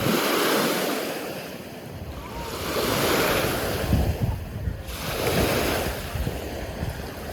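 Ocean surf washing ashore in three swells about two and a half seconds apart, with wind buffeting the microphone.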